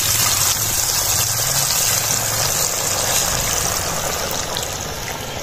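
Potato, spinach and onion pakora batter frying in a pot of hot oil: a dense, steady sizzle, with a low steady hum underneath.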